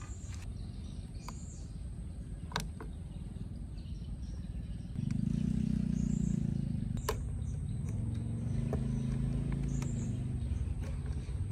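A motor vehicle's engine running steadily, its low hum getting noticeably louder about five seconds in. A few light clicks and faint bird chirps are heard over it.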